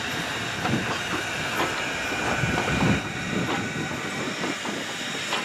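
Baldwin 2-10-0 steam locomotive working past with a passenger train: irregular exhaust chuffs and hissing steam over the clatter of its wheels, loudest about three seconds in.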